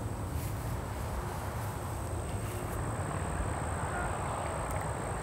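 Outdoor ambience: a steady low rumble and hiss under a thin, steady high whine, with faint insect chirping.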